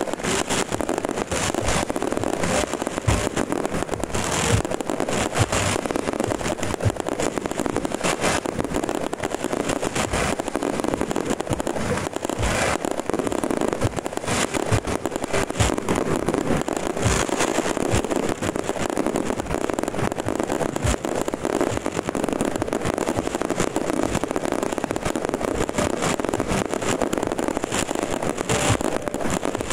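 A ground-fired fireworks display: rows of fountains and low aerial bursts firing without pause. It makes a dense, continuous crackling, broken by frequent sharp bangs.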